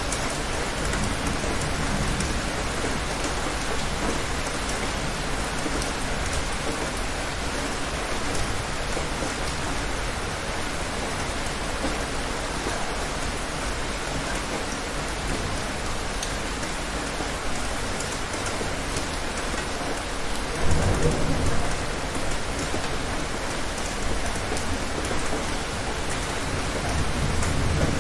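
Steady rain, with a sudden clap of thunder about three-quarters of the way through, the loudest moment, and a low roll of thunder building near the end.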